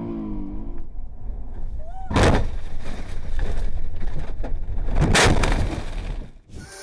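Two loud knocks about three seconds apart over a low rumble: a dashcam being handled and knocked about in a crashed car.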